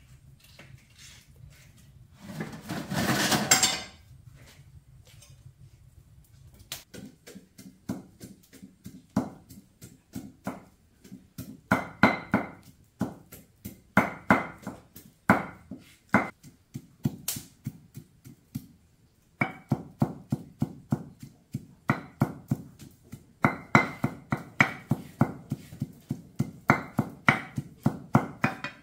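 Rapid runs of sharp knocks with a ringing clink, about four or five a second, broken by short pauses: kitchen utensils striking. A brief noisy rush comes about three seconds in.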